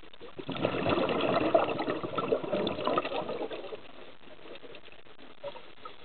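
Scuba diver breathing out through a regulator: a burst of bubbling that starts about half a second in and lasts about three seconds, over the steady hiss of the water.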